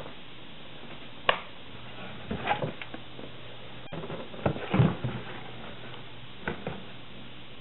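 Handling noises as the camera is moved and the cardboard product box is handled: a sharp click about a second in, then scattered knocks and rustles, the loudest about five seconds in, over a steady low hum.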